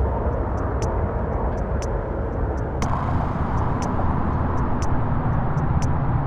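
Steady, diffuse rumble of distant city traffic, with faint sharp ticks a few times a second. The hiss turns abruptly brighter about three seconds in.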